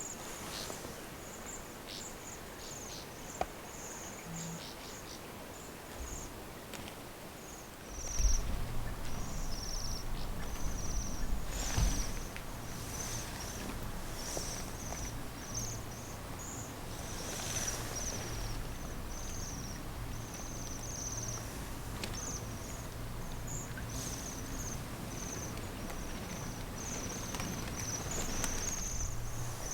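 Bohemian waxwings giving their thin, high trilled 'chiri-chiri' calls, many short calls in quick succession throughout. A low rumble comes in about eight seconds in.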